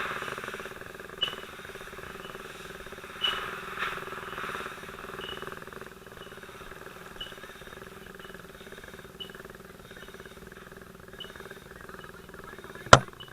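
A short, high-pitched beep repeating about every two seconds over a steady hum and hiss, with one sharp click near the end.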